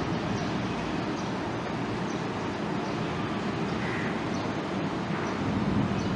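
Steady rumbling background noise, with faint short squeaks of a marker pen writing on a whiteboard.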